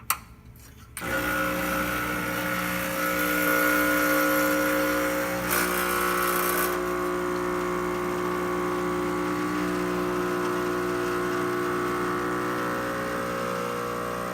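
Expobar espresso machine pulling a shot through its freshly rebuilt E61 group: a click, then about a second in the pump starts and runs with a steady hum, with a short hiss around the middle.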